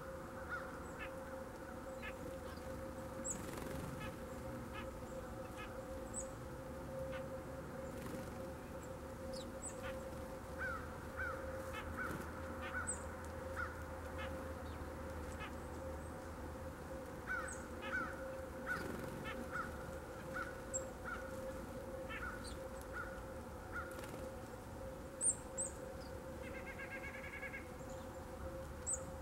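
Crows cawing in repeated series in the background, with faint high chip notes of small birds and a steady hum underneath.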